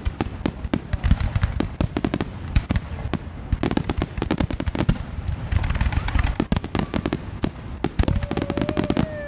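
Fireworks display: a continuous barrage of aerial shell bursts, several booms and bangs every second, with a stretch of crackling about six seconds in.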